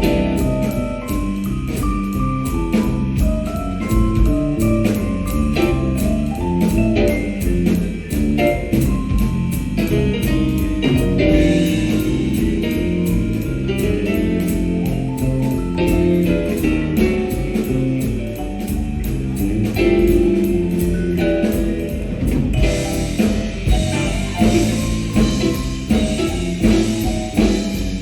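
A live jazz band playing a swing tune, with drum kit, bass and keyboards.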